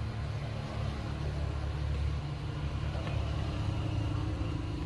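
A steady low rumble and hum in the background, like an engine or motor running.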